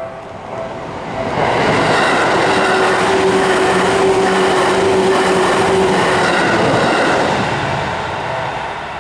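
Seibu Kokubunji Line train passing over a level crossing: a loud rush of wheels on rails swells about a second in, carries a steady tone through the middle of the pass, and fades near the end. The crossing's warning bell rings in a repeating pattern at the start before the train drowns it out.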